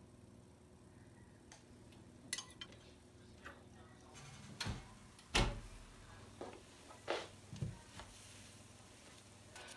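Quiet room tone broken by a handful of light clicks and taps of things being handled, the sharpest about two and a half, five and seven seconds in.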